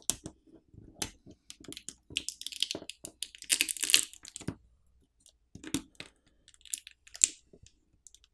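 Adhesive pull tabs under a OnePlus 10 Pro's battery being pulled and peeled loose: scattered small clicks, with a longer peeling noise around the middle.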